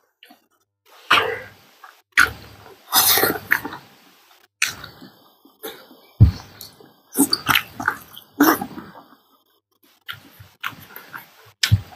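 Close-miked eating sounds from two people: wet chewing and lip-smacking in short irregular bursts, with one sharp thump about six seconds in.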